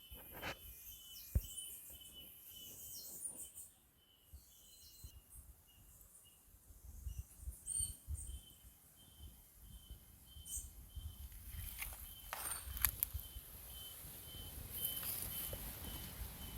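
Outdoor tropical ambience: small birds chirping now and then over an insect's steady pulsing trill. A few sharp knocks and patches of low rumble, louder near the end.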